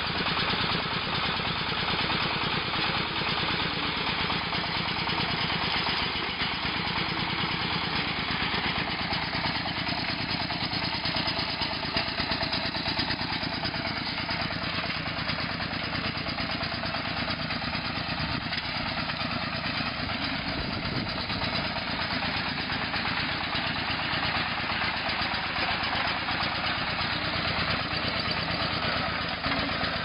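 Small tractor engine running steadily under work.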